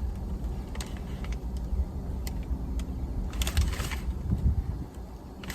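Steady low rumble inside a car's cabin, with a few light clicks and a brief rustle of handling about halfway through.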